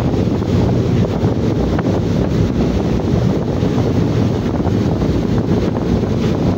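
Wind buffeting the microphone in a steady low rumble aboard a ship at sea, with the sea and the vessel's running noise mixed in beneath it.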